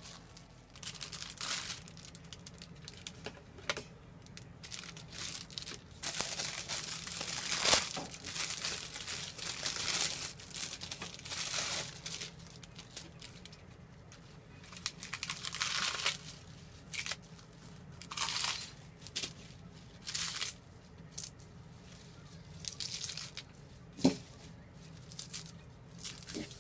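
A clear plastic bag crinkling as hands knead the meat inside it, then fresh lettuce leaves being torn by hand and rustling in a stainless steel colander, in irregular crackly bursts. One sharp tap a little before the end.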